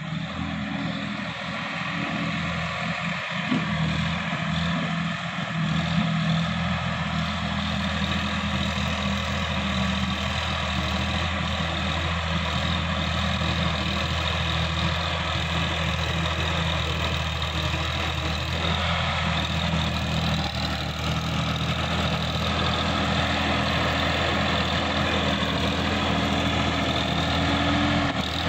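Sonalika DI-50 RX tractor's diesel engine running steadily while the tractor pulls a tillage implement through the field, growing slightly louder about two seconds in.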